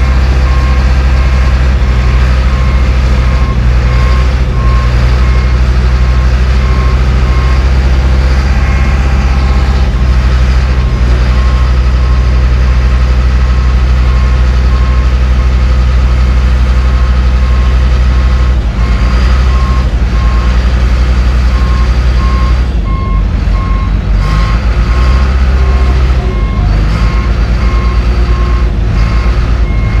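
John Deere 850J crawler bulldozer backing slowly onto a lowbed trailer: its diesel engine runs with a heavy low hum while the backup alarm beeps repeatedly at an even pace.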